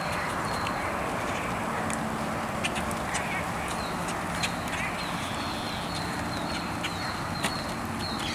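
Steady rain falling on standing water, with scattered drops ticking close by. Through it, short high chirps repeat in runs, and low drawn-out animal calls come and go.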